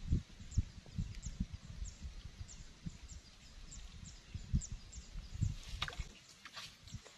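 Wind buffeting the microphone in irregular low rumbles, under faint high chirps that repeat about twice a second. A few sharp clicks come near the end as the fishing rod swings in.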